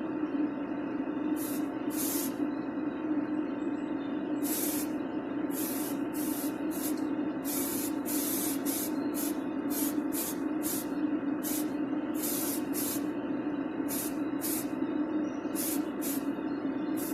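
Primer being sprayed onto small die-cast toy parts in many short hissing bursts, roughly one every half second to second, over a steady low hum.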